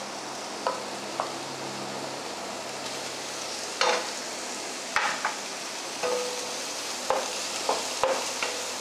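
Diced onion and bell peppers sizzling steadily in butter in a frying pan, with a wooden spatula scraping and knocking against the pan several times as red pepper is tipped in and stirred.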